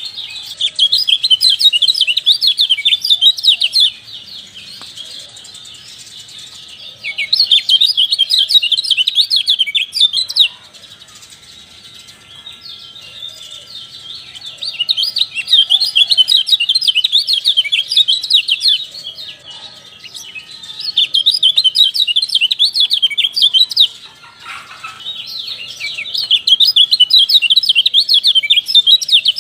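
Kecial (white-eye) song: rapid, high-pitched chattering twitter in about five loud bouts of three to five seconds each, with short lulls of softer chirps between them.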